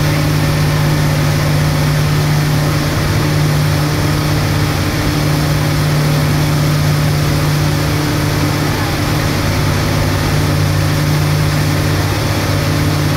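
Boat engine running steadily under way, a constant low hum over a steady rushing noise.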